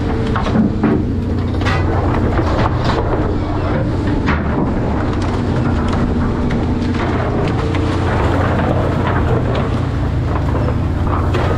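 Working deck noise aboard a commercial fishing boat: a steady low drone of the boat's engine and machinery under wind and sea noise, with frequent short knocks and slaps as cod are handled on a stainless steel sorting table.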